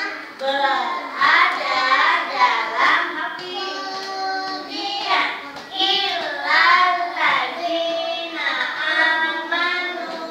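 Young children singing a song together, with some notes held.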